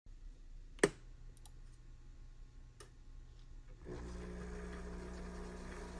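Espresso machine being started: a sharp click of a switch or button, a few lighter clicks, then about four seconds in the machine starts a steady electric hum.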